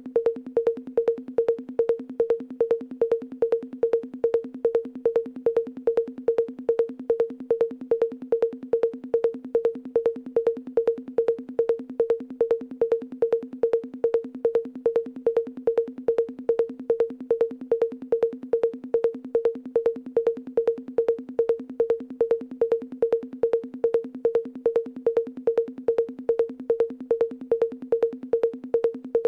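A pitched electronic percussion hit repeating in a steady loop, about two to three strokes a second, each a short tuned tone that dies away quickly.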